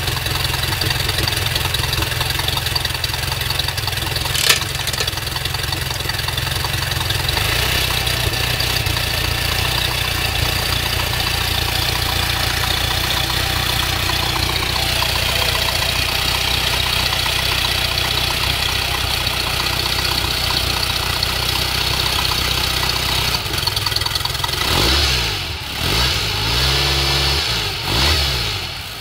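Mercruiser 470 3.7-litre four-cylinder sterndrive engine idling steadily, running out of the water on a garden hose. There is one sharp click about four seconds in. Near the end the engine speed rises and falls a few times.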